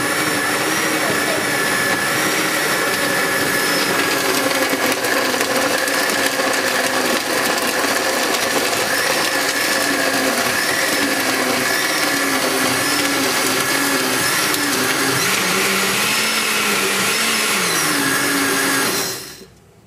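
Countertop blender running, crushing ice with chunks of fruit and juice into a smooth smoothie. The motor's hum wavers in pitch as it works, and it cuts off about a second before the end.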